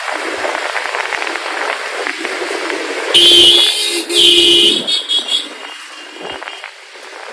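Vehicle horn honked twice in quick succession, two loud blasts about three seconds in, over steady wind and road noise from a moving motorcycle.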